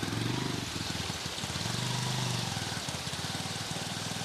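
A small engine running with a steady, fast low pulsing, over a constant hiss of rain or rushing water.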